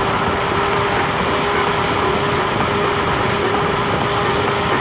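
Steady wind and road noise from riding a Nanrobot LS7+ electric scooter, with a steady whine held over it.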